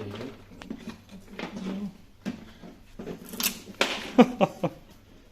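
Metal engine parts and hand tools being handled, knocking and clinking, with a quick cluster of sharp metallic clinks from about three and a half seconds in.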